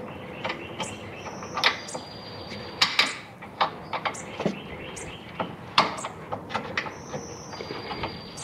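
New rubber sway bar bushing being worked by hand onto the Honda Element's rear sway bar and against its bracket: irregular knocks and clicks of the bushing and bar shifting, with two high squeaks of about a second each as the oiled rubber slides on the metal.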